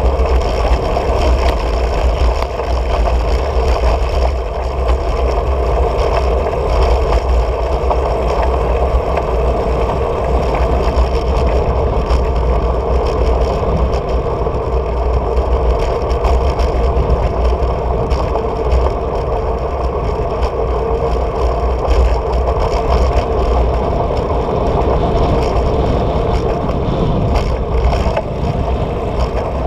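Steady wind rumble on a bicycle's handlebar-mounted camera while riding, mixed with tyre and road noise from the bike rolling over asphalt.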